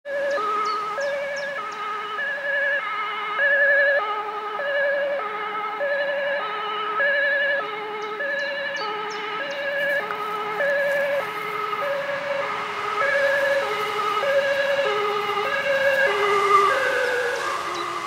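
Ambulance two-tone siren sounding, alternating steadily between a high and a low note about every half second, its pitch dropping slightly near the end.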